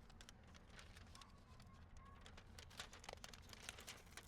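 Faint crinkling and small irregular clicks of foil insulation materials being handled, over a low background hum.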